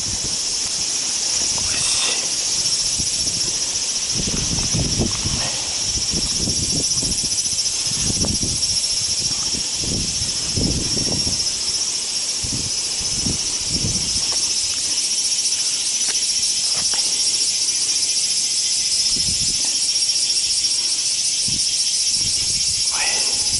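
Steady high-pitched insect chorus throughout, with scattered low rustles and bumps from a large snakehead being handled on the grass, mostly in the first half.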